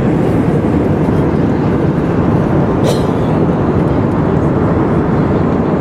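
Steady low rumble of an airliner's cabin noise in flight, with one brief hiss about three seconds in.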